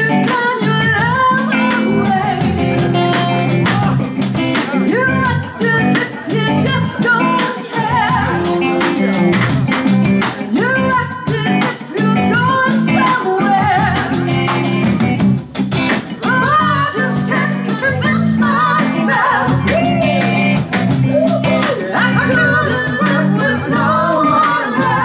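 Live rock-and-soul band playing: a woman sings lead over electric guitar, electric bass and a Sonor drum kit.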